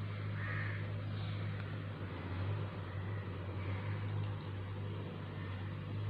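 A steady low hum under faint background noise, with no clear handling sounds.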